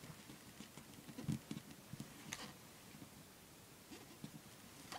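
Faint handling sounds of fingers pressing and smoothing strips of duct tape onto a plastic cutting mat: a few soft scattered taps, the clearest a low thump just over a second in, and a brief crinkle of tape about two seconds in.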